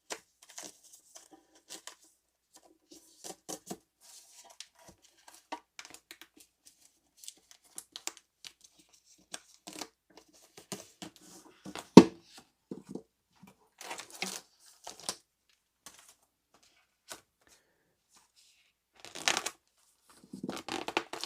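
Plastic wrapping being torn open and crinkled by hand, in scattered short crackles and rustles, with one sharp knock about halfway through.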